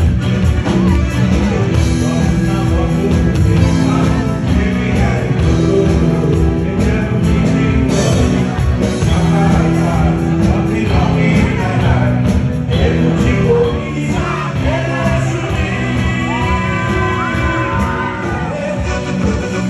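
Live Bangla rock band playing through a PA: electric guitar, keyboard and drums keep a steady beat under a male lead singer's vocals.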